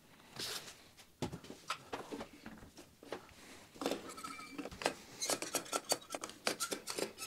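Irregular small clicks, knocks and rubbing of plastic and metal parts as a desktop robot arm on its printed stand is handled and the stand's suction-pad base is pressed down onto a table, with a few brief squeaks in the second half.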